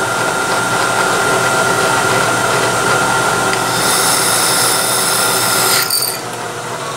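Vertical milling machine's spindle running with a steady whine. About four seconds in, a small drill in the chuck cuts into the metal plate for about two seconds with a high hiss, spotting a hole on the bolt circle. The running sound drops a little near the end.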